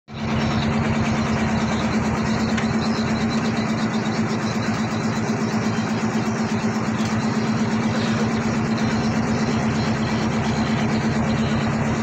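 Klotok river ferry's inboard engine running steadily at idle, with a fast, even beat and a steady low hum.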